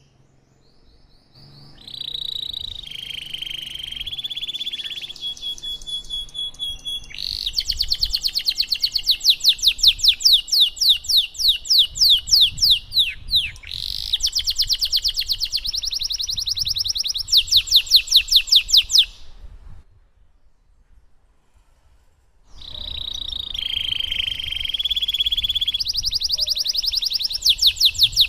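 Domestic canary singing long rolling phrases of rapid repeated trilled notes and quick downward-sweeping notes. The song breaks off for about three seconds two-thirds of the way in, then starts again.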